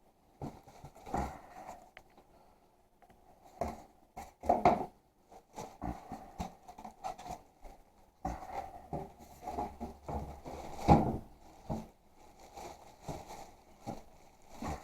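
Irregular handling noises of a portable camping gas heater being unpacked: rustling of packaging, scrapes and light knocks, with two louder knocks about four and eleven seconds in.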